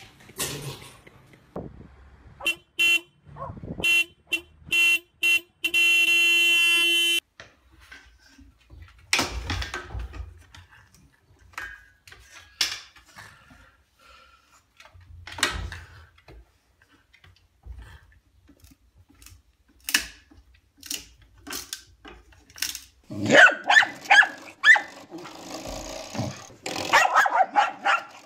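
A series of short beeps on one steady pitch, about seven in quick succession, ending in one longer held tone. Near the end, dogs bark and growl in a busy jumble.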